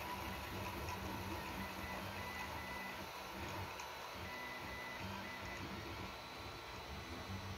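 3D-printed propeller spinning under rubber-band power, a steady whir with a low hum.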